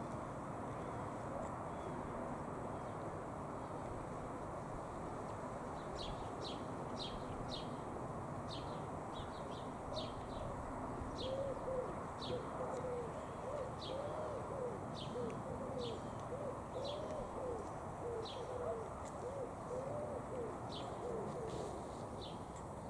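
Small birds chirping in short, high notes about twice a second, joined for about ten seconds in the middle by a run of low, rapidly repeated cooing notes, over a steady background rumble.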